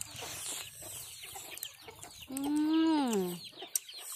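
Chickens clucking, with many short, high, falling chirps throughout. A little past the middle, a drawn-out voiced call, rising then falling in pitch for about a second, is the loudest sound.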